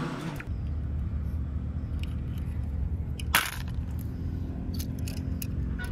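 Steady low outdoor rumble with scattered light clicks and one sharper crack a little over three seconds in.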